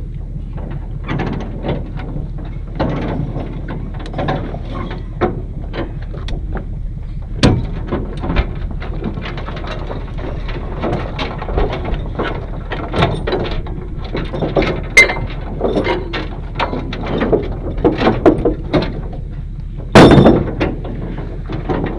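Knocks and clanks of a heavy hay baler being shifted about on a trailer by hand, with a sharp bang about seven seconds in and a louder crash about two seconds before the end, over a steady low hum.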